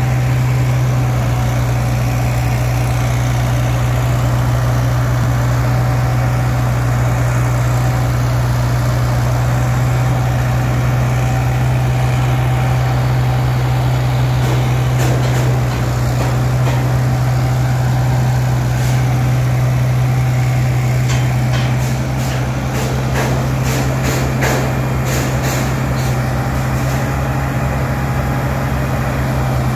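Heavy machinery engine running steadily with a constant low drone, with scattered light clicks in the second half.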